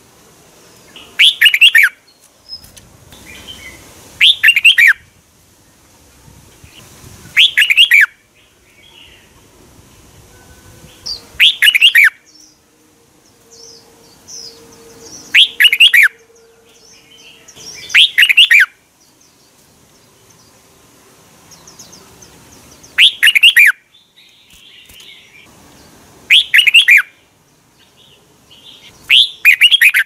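Red-whiskered bulbul singing loud, short phrases of a few quick sweeping notes, nine of them, repeated every three to five seconds.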